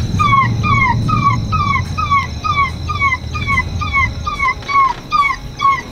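Electronic predator call playing a repeated, dog-like whimpering squeal: short falling whines, about three or four a second, at an even, mechanical pace, used to lure coyotes and other varmints in at night.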